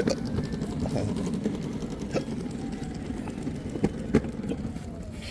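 A person's hiccups from intractable hiccups: four short, sharp hics at the start, about two seconds in and twice near four seconds, over a steady low rumble.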